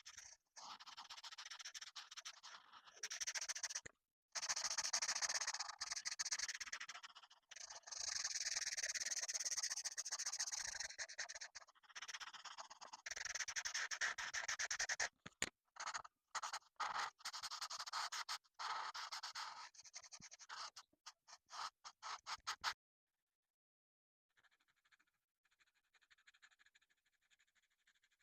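Colouring strokes on paper: long scratchy back-and-forth strokes with short pauses, turning to quick short strokes a little past halfway. They stop suddenly, and fainter scratching starts again near the end.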